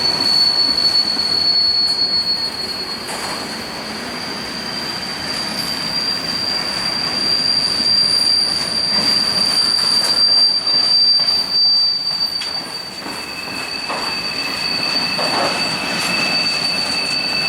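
Freight train cars rolling past, with a steady high-pitched squeal from the steel wheels on the rail over the rumble and clatter. A second, lower squeal joins near the end.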